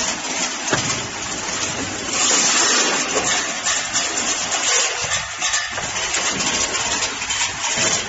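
Zipper-puller counting and packing machine running, with a steady dense rattling hiss of many small zinc alloy zipper pullers clattering against metal.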